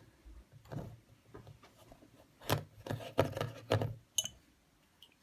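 Rubik's cube being turned by hand: scattered plastic clicks and rattles, with a quick run of them about halfway through.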